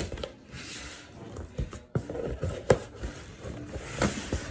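Cardboard shipping carton being handled: rustling and scraping of cardboard with several sharp knocks as a shoe box is pulled out of it.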